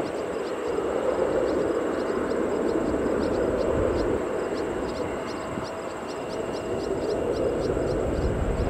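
Boeing 747-8 on final approach, its four GEnx engines a steady distant rushing rumble. A faint high chirp repeats a few times a second over it.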